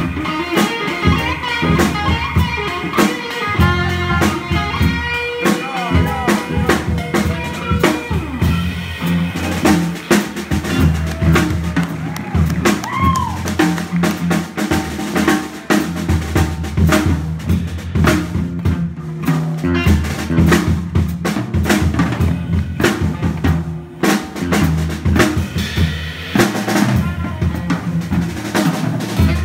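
Live jazz combo playing: a drum kit busy and prominent over a steady bass line, with electric guitar lines for about the first ten seconds that then give way to mostly drums.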